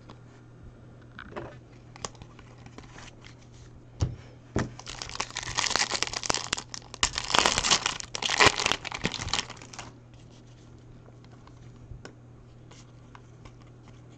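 Foil wrapper of a Topps Chrome jumbo baseball card pack crinkling and tearing as it is ripped open, a dense crackle starting about four seconds in and lasting about five seconds. A few light clicks of cards being handled come before it.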